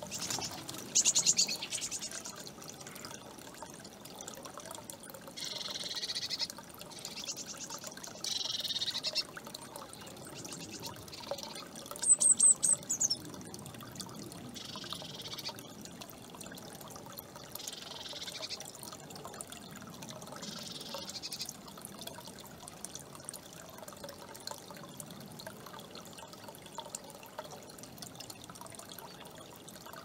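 Bird-bath fountain trickling steadily. A hawk's wings flap as it lands near the start, and short high bird calls come at intervals, the loudest a quick falling run of high notes about twelve seconds in.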